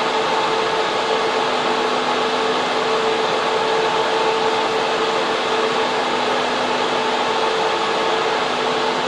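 Data center server room: cooling fans and air-conditioning units running with a steady loud whoosh and a constant hum, several fixed tones held underneath.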